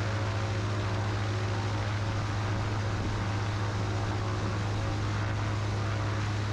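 Rotax piston engine and propeller of a Sling light aircraft running steadily at taxi power, a constant low drone.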